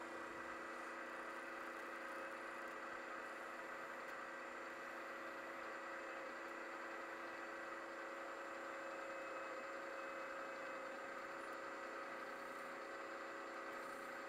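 Milling machine spindle running steadily with a center drill in its chuck, a steady whine with several held tones while the flywheel hub is center drilled.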